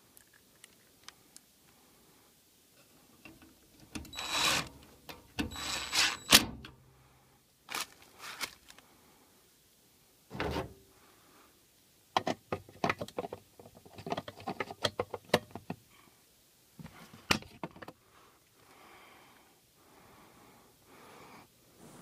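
Intermittent handling noises: scrapes, knocks and rattles of hands working metal parts and wiring on an air handler's electrical box, loudest in a few scraping bursts early on and then a quick run of clicks and clatters in the middle.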